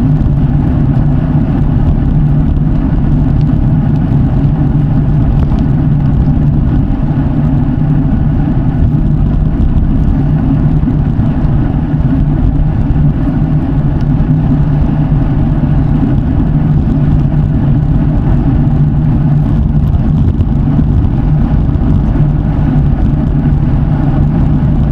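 Road bike tyres rolling over the road, a steady hum and rush that keeps on without a break.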